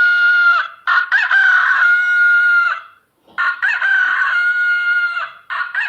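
Recorded rooster crowing played from a children's farm-sounds book. The same crow repeats about every two and a half seconds: one crow ends just after the start, two full crows follow, and another begins near the end.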